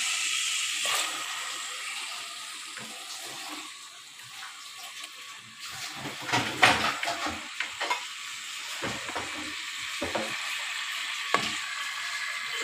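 Hot oil sizzling in a steel pan as raw chicken pieces go in. Several sharp knocks and clatters of pieces and utensil against the pan come about six to seven seconds in, with a few single clicks after.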